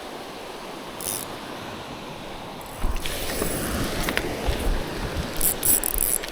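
Wind blowing over the microphone with sea surf behind it, turning gustier and louder about three seconds in.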